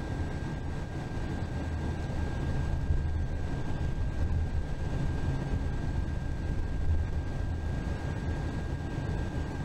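Steady low road and engine rumble of a bus moving along the interstate, heard from inside, with a faint thin whine held steady on one pitch throughout.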